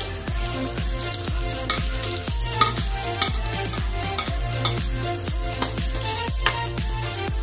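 Oil sizzling and crackling steadily in a steel wok as chopped aromatics and ginger strips fry, with a few sharp clinks of a metal ladle against the wok. Background music with a steady beat plays under it.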